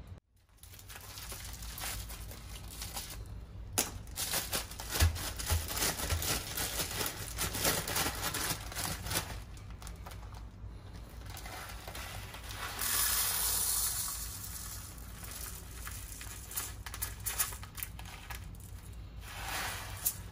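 Kitchen handling sounds during food preparation: scattered clicks, clinks and rustling, with a steady hissing rush for about a second and a half in the middle.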